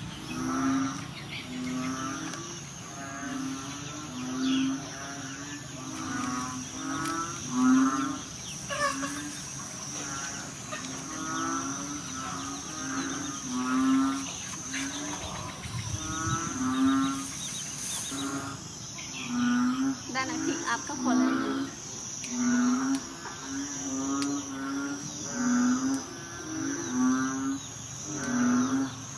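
A chorus of low, moo-like animal calls repeating about once a second, with wavering higher calls among them, over a steady high insect drone.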